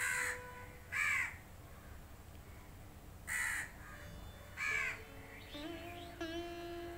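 A crow cawing four times, single harsh caws a second or more apart. Faint instrumental music with long held notes comes in near the end.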